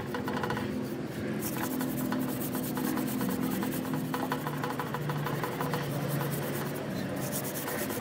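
Rapid scraping strokes, many a second, keeping up steadily.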